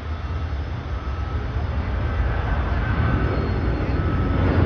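Boeing 737 jet airliner on its takeoff roll, engines at takeoff thrust, a steady noise with faint whining tones that grows gradually louder as the aircraft accelerates toward rotation.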